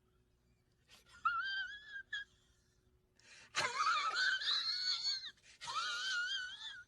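A high-pitched voice whining in three wavering, strained squeals, the middle one the longest and loudest and opening with a breathy burst.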